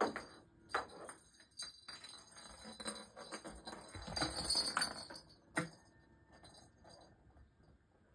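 A cat batting and chasing small toys across a tile floor: scattered taps and knocks with light clinking and jingling, busiest about four to five seconds in.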